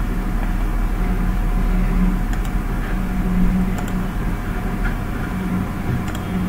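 Steady low background hum of room noise picked up by the microphone, with a few faint mouse clicks, about two and a half, four and six seconds in.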